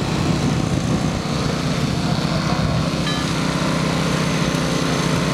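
Small gasoline engine of a portable hydraulic power unit running steadily at a fast, even beat, driving the pump that powers a rescue tool during vehicle extrication.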